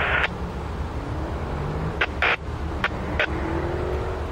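Diesel freight locomotive running under load as it pulls its train out, a steady low engine rumble with a faint rising whine near the end. A short hiss of radio static comes right at the start, and a few sharp clicks fall about two to three seconds in.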